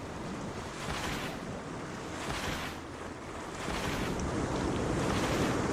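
A steady rushing noise, like wind or surf, that grows louder about two-thirds of the way through.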